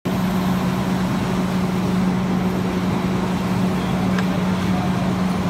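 Steady low hum of parked fire trucks with their engines running, over constant street noise.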